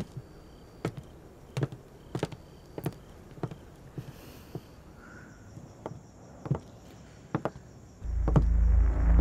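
Footsteps on a hard floor: a string of sharp, uneven taps about every half second to second. Near the end, low, ominous soundtrack music comes in and becomes the loudest sound.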